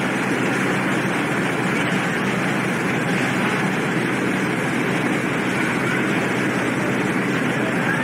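Steady drone of a car ferry's engines under a constant rushing noise on the open deck, unbroken and even in level.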